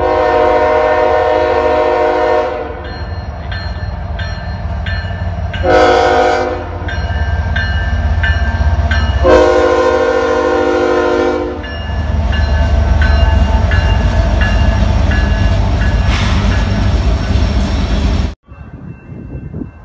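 Freight train's diesel locomotive air horn sounding a long blast, a short one, then another long one, over the steady low rumble of the locomotives and cars rolling past. A regular high ticking about twice a second runs under the horn, and the sound cuts off suddenly near the end.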